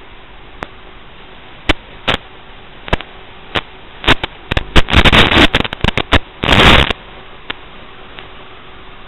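Static from an analog FPV video receiver's audio channel: a steady hiss broken by sharp crackles and short bursts of noise, which come thick and fast from about four seconds in, the loudest burst about six and a half seconds in.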